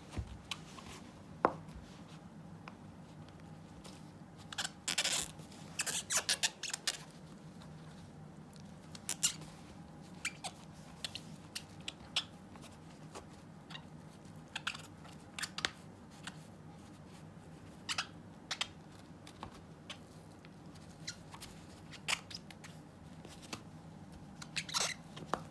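A Shiba Inu chewing and tearing at a fabric-covered ball toy: irregular snips and rips of cloth and threads under its teeth, with a quick run of rips about five to seven seconds in and another near the end.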